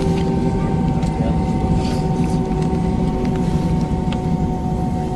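Jet airliner engines running steadily at taxi power, heard inside the passenger cabin: a deep rumble with steady whining tones over it.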